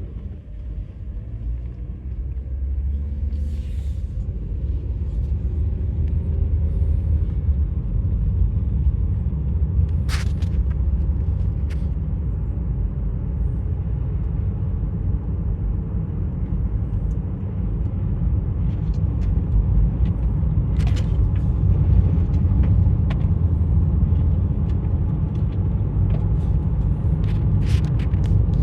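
A car driving: a steady low road and engine rumble that builds over the first several seconds, with a few faint clicks.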